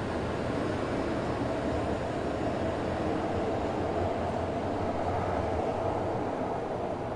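Tokaido Shinkansen train running along the platform, a steady rushing noise with a hum that swells slightly about half a second in.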